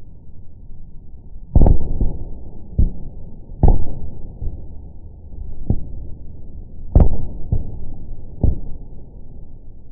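Fireworks shells bursting in slow-motion playback: a series of deep, slowed-down booms, three big ones and the loudest about seven seconds in, with smaller bangs between them over a low rumble.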